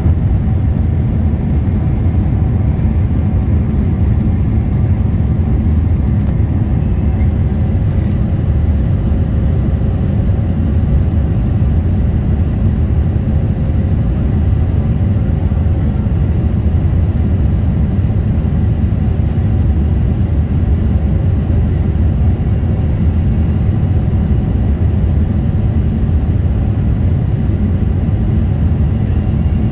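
Steady low rumble of engine and airflow noise inside a Boeing 777 airliner's cabin as it descends.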